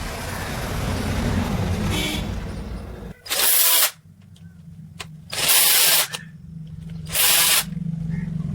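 DYK 1150 W angle grinder switched on in short bursts: a steady noisy run for about three seconds, then three loud blips of under a second each, about two seconds apart.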